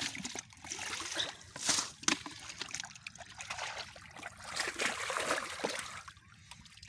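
Muddy water splashing and trickling in irregular bursts as hands work through shallow water, settling down near the end.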